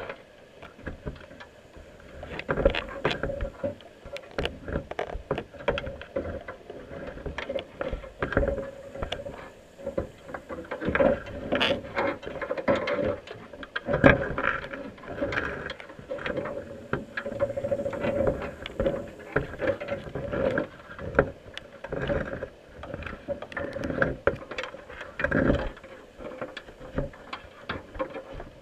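Underwater: a crab crawling over the camera housing inside a wire crab pot, its legs and shell making many irregular clicks, taps and scrapes. A steady hum runs underneath.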